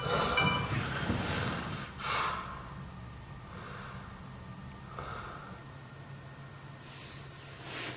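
A man breathing heavily through his nose as he lies face down, just woken: a few separate snorting breaths over a steady low hum. A phone alarm tone stops about half a second in, as he reaches for the phone.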